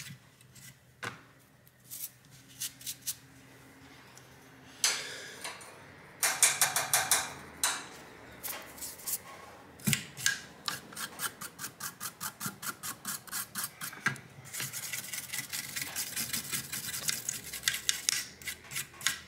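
Toothbrush bristles scrubbing a graphics card's circuit board: rhythmic scratchy strokes, sparse at first, with a loud stretch of hard scrubbing about six seconds in and quicker, steadier strokes of about four or five a second in the last few seconds.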